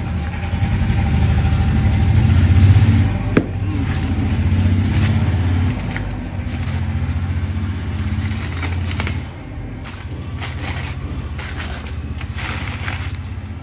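Newspaper wrapping crackling and tearing as it is pulled off a new motorcycle exhaust silencer, with paper rustles coming in bursts toward the end. Under it, and louder, an engine runs with a low pulsing rumble that swells in the first few seconds and eases off later.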